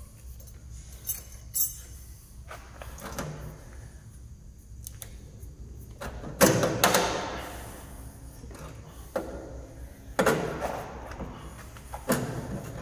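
Heavy 4-core 70 mm² armoured cable being pushed and worked into a steel distribution cabinet: knocks and scrapes of the cable against the metal enclosure. Two light clicks about a second in, then louder knocks with a scraping tail about halfway through and twice more near the end, the loudest about halfway.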